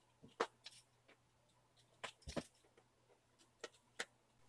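About six faint, scattered clicks and taps from a small screwdriver and fingers on a laptop's display panel and its mounting screws as they are tightened. The loudest click comes about half a second in.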